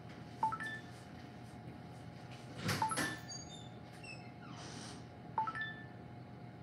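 A few faint, sharp kitchenware clinks, three in all, each ringing briefly, with a short soft hiss between the last two, over a faint steady hum.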